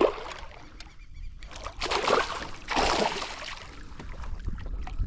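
Water splashing in two short bursts about a second apart, from a freshly hooked tucunaré (peacock bass) at the boat.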